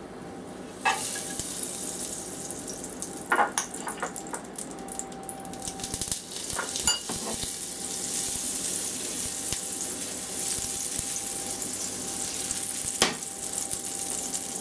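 Butter sizzling as it melts in hot oil in a nonstick frying pan, starting suddenly about a second in and then going on as a steady hiss. A few sharp knocks come along the way.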